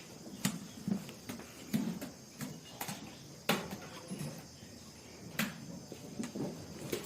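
Faint, irregular knocks and shuffles of buffaloes and cows moving about in a dairy shed, over a steady high insect chirring.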